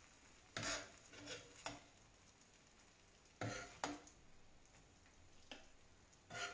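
Serving utensil clinking and scraping against a frying pan and plate as cooked ravioli are lifted out and plated: several short, separate clatters.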